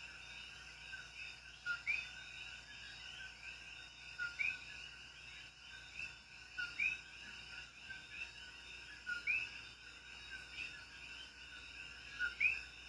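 Common coquí frogs calling: a nearby frog gives its two-note "co-kí", a short lower note followed by a higher rising one, about every two and a half seconds, over a steady background chorus of more calling frogs.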